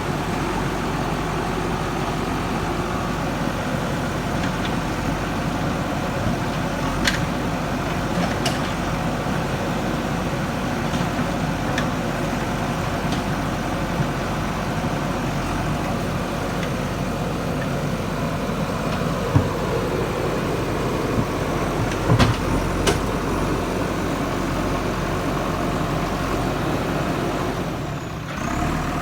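JCB 3DX Super backhoe loader's diesel engine running steadily, with a few sharp knocks scattered through, two of them close together in the later part.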